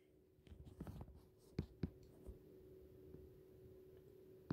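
Phone being handled as the camera is turned: soft rustling and a few light clicks in the first two seconds, then only a faint steady hum in a quiet room.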